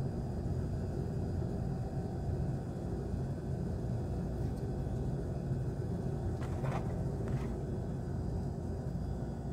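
Steady low outdoor rumble, with two faint short sounds about six and a half and seven seconds in.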